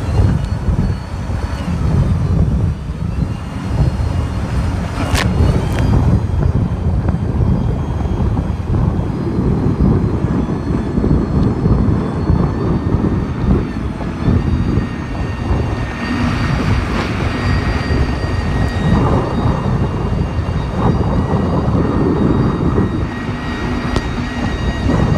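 Jet ski running at speed over choppy water, with heavy wind rumble on the microphone; a steady engine whine comes through in the second half.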